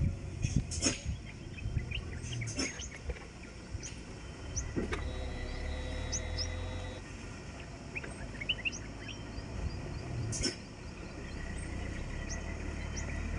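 Birds chirping over the low, steady rumble of a distant diesel truck engine, with a few sharp knocks.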